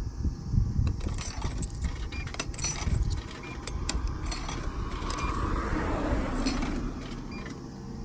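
Coins clinking as they are fed one after another into the coin slot of a drink vending machine: a run of small metallic clicks and rings over the first few seconds, over a low rumble.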